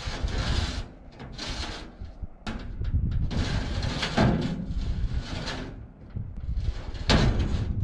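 Welded metal hay rack being slid along a truck bed: long scraping passes broken by several clunks, with the loudest knock near the end.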